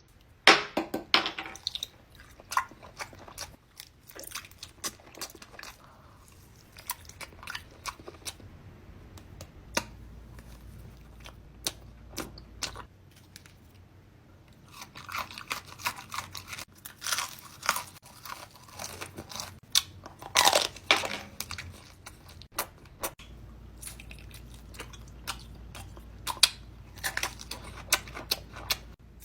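Someone chewing crunchy snacks close to the microphone: irregular sharp crunches and chewing, in busy clusters near the start, around the middle and about two-thirds through.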